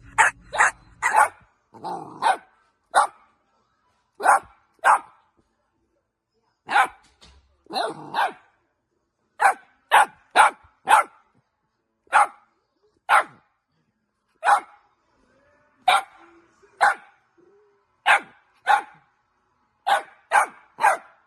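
A dog barking repeatedly: about two dozen short barks, some single and some in quick pairs, with gaps of up to a second or two between them.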